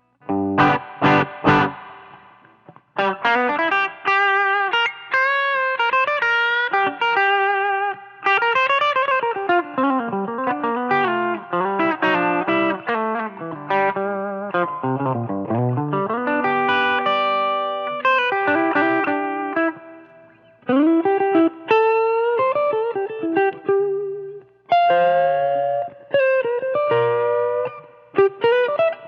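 Electric guitar played through a Kardian Serotonin overdrive pedal, a Tube Screamer-style overdrive. It opens with three short chord stabs, then plays a lead line of single notes with string bends, slides and vibrato.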